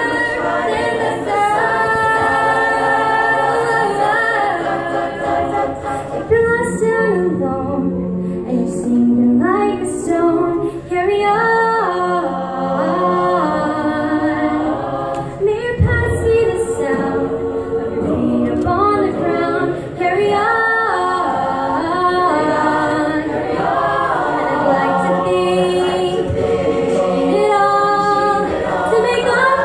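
High school choir singing a cappella, with a female soloist singing the melody into a microphone over the choir's voices.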